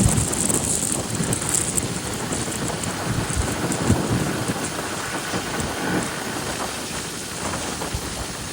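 Heavy wind noise buffeting the microphone on a moving motorcycle, a 2005 BMW R1200RT: a steady rushing with irregular low thumps that bury the bike's own sound.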